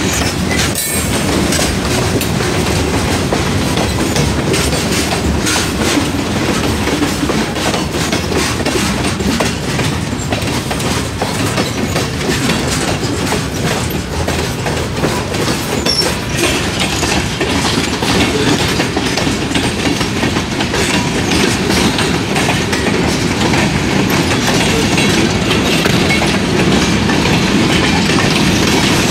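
Freight train of covered hopper cars and boxcars rolling past close by: a steady rumble with the wheels clicking and clacking over the rail joints.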